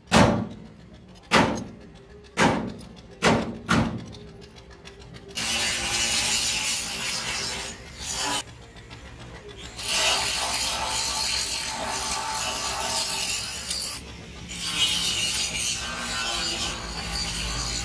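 Steel wheel brace turning the wheel nuts on a truck hub's studs: a few sharp metal clicks in the first four seconds, then steady scraping and rasping with short breaks.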